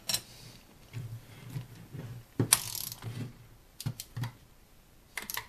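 A 15/16-inch wrench turning the locking nut on a wheel's axle bolt: scattered metal clicks and knocks, the sharpest about two and a half seconds in, with a faint low rumble between them.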